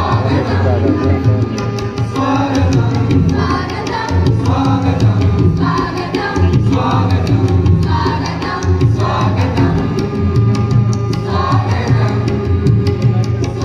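A large choir of schoolchildren singing together to live accompaniment with a steady hand-drum beat, in a large auditorium.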